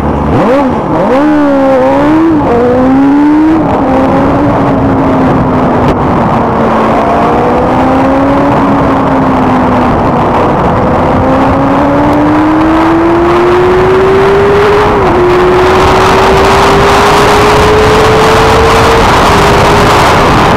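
Benelli TNT 600i inline-four engine accelerating hard, its exhaust note rising and dropping through several quick upshifts, then climbing steadily in a high gear with a brief dip about fifteen seconds in. Wind rush on the microphone grows louder as speed builds.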